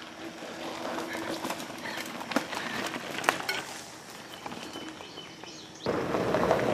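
Faint outdoor background with scattered light clicks and ticks. Near the end a louder, steady rushing noise comes in.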